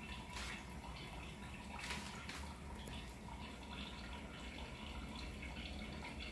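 Faint steady background hiss with a low hum, broken by a few soft clicks in the first half.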